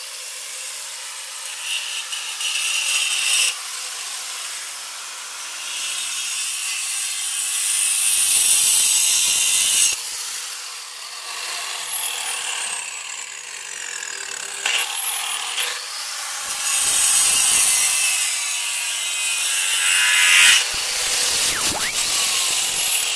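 Diamond-blade angle grinder cutting into marble: a high-pitched cutting noise that swells and eases again and again as the blade is worked into the stone.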